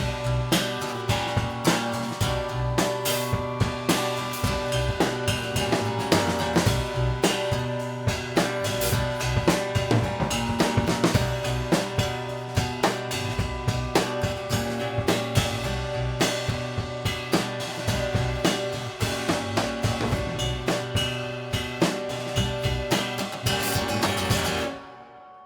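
Live rock band playing an instrumental ending over a busy drum kit with snare and bass drum hits, the full band stopping sharply near the end with a brief ringing tail.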